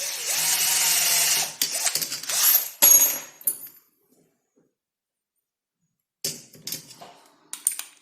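A small power drill runs for about a second and a half, its motor whine rising as it spins up. Then come clicks and knocks of parts being handled, a pause, and more handling clatter near the end.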